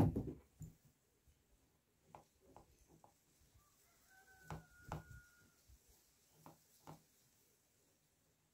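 A phone set down on a wooden table with a short clatter, followed by scattered soft knocks and taps from hands and a pen working on a shirt. A faint steady high tone sounds for about a second midway.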